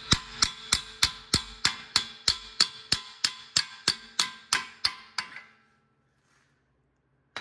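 Hammer striking metal while a CV axle is knocked free of the wheel hub and spindle: about seventeen evenly spaced blows, roughly three a second, each with a ringing note, stopping a little past five seconds.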